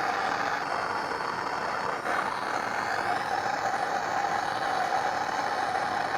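Gas torch flame running steadily, a continuous hissing rush, as it heats a seized adjustable wrench to free its stuck adjusting screw.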